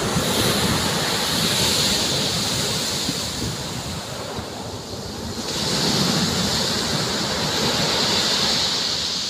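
Sea waves breaking and washing up on a pebble shore in a steady rush, with a second wave surging in about five and a half seconds in.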